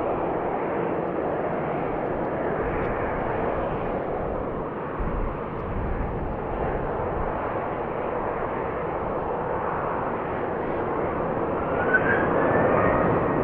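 Jet engines of a Sun Country Boeing 737 on its takeoff run, a steady rushing noise with a faint rising whine coming in near the end.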